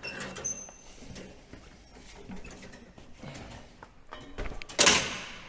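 Footsteps and metal clanks as a person climbs down the steps of a scissor-lift work platform, with scattered knocks and rattles. There is a louder short scuff about five seconds in.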